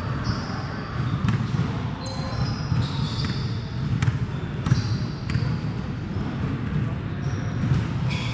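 Indoor basketball game: a basketball bouncing on the court and sneakers giving short high squeaks on the floor, over players' voices and the hum of a large, echoing sports hall.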